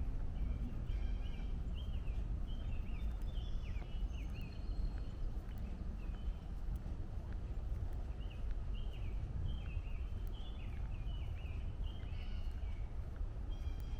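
A songbird sings two runs of quick, varied chirping notes, the first starting about a second in and the second about halfway through. Under the song runs a steady low rumble of distant traffic.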